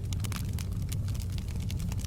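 Wood fire crackling: frequent sharp pops and snaps, several a second, over a steady low rumble of the burning fire.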